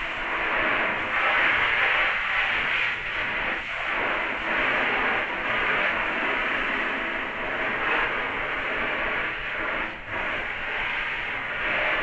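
Water spraying from a handheld shower head onto a soaked down jacket, a steady hiss that dips briefly twice as the spray is moved.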